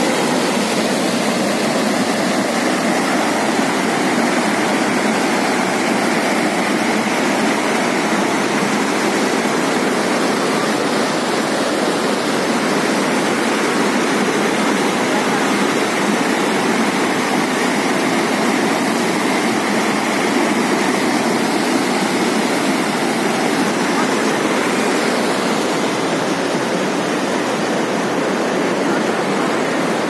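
River rapids: white water rushing and churning over rocks, a steady, unbroken roar of water.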